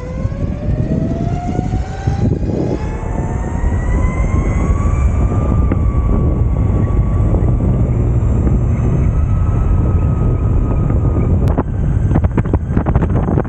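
Electric skateboard motor whining as the board accelerates: the whine rises steadily in pitch for about five seconds, then holds level at cruising speed, over a heavy low rumble of wind on the microphone and wheels on the road. Near the end a run of sharp rattling knocks joins in.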